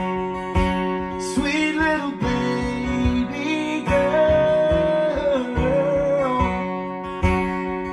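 Live music: a man singing slow, long held notes over a strummed acoustic guitar.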